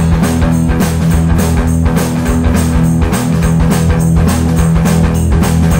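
Rock band playing: guitar and bass guitar over a drum kit keeping a steady beat.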